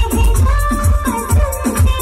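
Loud music with a steady drum beat of about three hits a second, held melody notes, and fast high shaker-like ticks.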